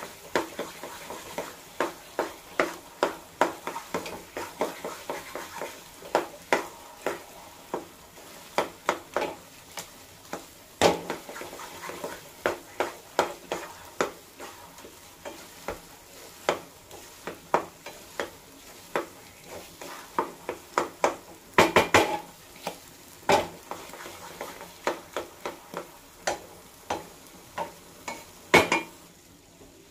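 A spatula scraping and knocking against a nonstick pan as thick atta halwa is stirred and roasted in ghee, in irregular strokes of about one or two a second, with a faint sizzle underneath. The ghee has just begun to separate from the halwa, the sign that it is nearly done.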